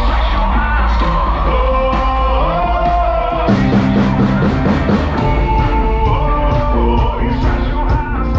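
Live band playing a sertanejo song through the stage PA: acoustic guitar, keyboard and drums, with a singing voice on top. The drums and low end come in fuller about halfway through.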